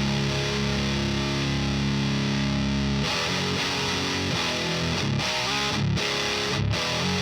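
Electric guitar played through a Diezel VH4 preamp pedal with heavy distortion. A chord rings for about three seconds, then a faster riff of changing notes follows, broken by short stops.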